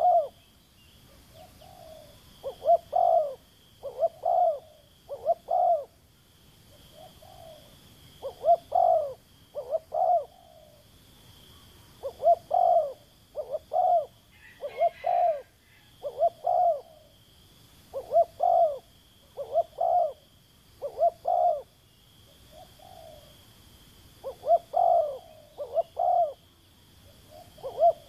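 Spotted dove (terkukur) cooing over and over, in phrases of two or three low coos, some led by a softer note, every few seconds.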